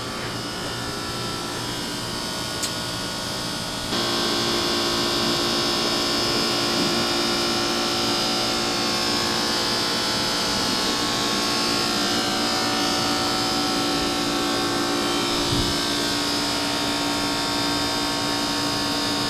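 Steady drone of running machinery aboard the NASA crawler-transporter, a hum made of many fixed tones over a noisy hiss. It steps up in level about four seconds in and then holds steady.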